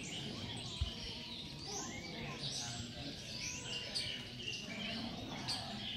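Many small birds chirping and twittering at once, short overlapping calls throughout, with a single low bump a little under a second in.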